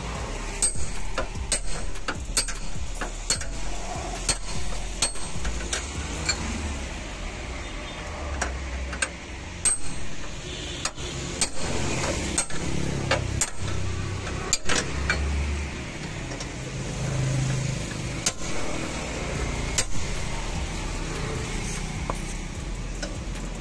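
Hammer blows on a steel bar held against a Maruti Suzuki Wagon R's bent front frame member: sharp metal-on-metal strikes about once a second, less regular later, while the frame is pulled straight with a chain.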